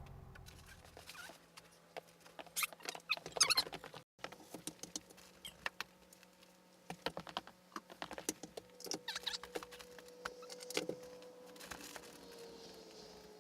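Irregular light clicks, taps and knocks with a few short squeaks, the sound of hands handling and fitting building boards and tools. A faint steady hum runs underneath.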